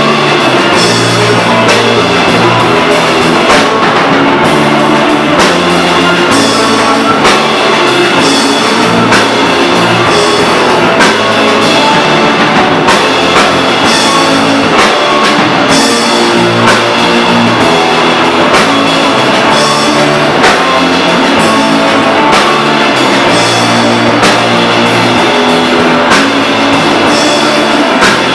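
Rock band playing live: electric guitars and bass over a drum kit, loud and continuous, with steady drum hits.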